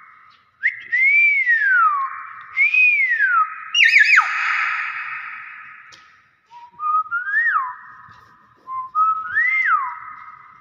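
Nias hill myna whistling: a series of clear whistles that rise and then fall in pitch, with a harsher, louder call about four seconds in.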